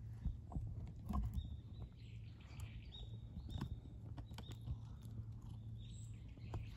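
Light scattered footsteps and scuffs on grit-strewn asphalt. A few short, high, thin chirps of a small bird come in from about a second and a half in, over a steady low hum.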